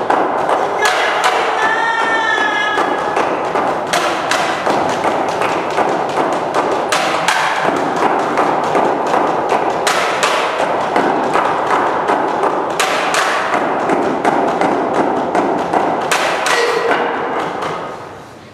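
Fast live frame-drum playing: a dense run of quick strikes that stops shortly before the end. A voice wails briefly about two seconds in.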